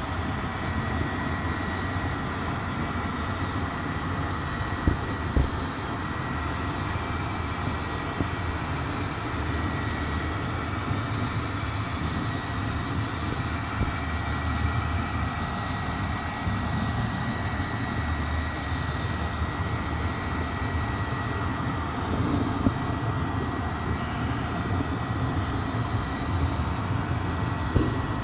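A train running steadily: a continuous rumble with a thin high whine held on one pitch, broken by an occasional sharp knock.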